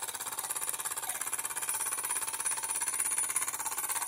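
Bowman live steam engine running steadily, its cylinder chuffing in a fast, even beat over a hiss of steam. It is running well.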